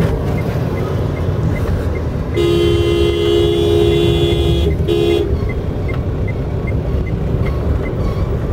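Steady road and engine rumble inside a moving car. A two-tone vehicle horn honks a long blast of about two seconds, then a short one.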